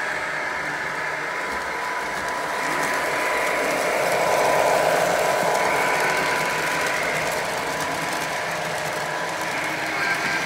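Lionel model trains running on the track: a steady whir and rattle of electric motors and wheels with a thin steady whine, swelling about four to six seconds in as a train passes close.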